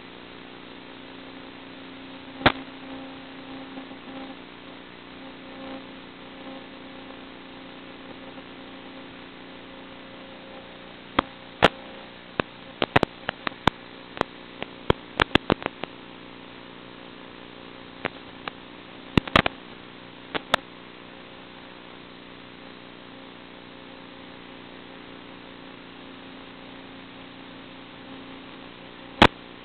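Steady electrical hum on the FPV video link's audio channel, with scattered sharp clicks and pops, bunched together in the middle. The motor is not running.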